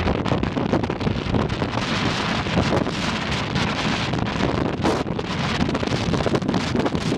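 Wind buffeting the microphone: a loud, uneven rushing noise with gusty low rumbling.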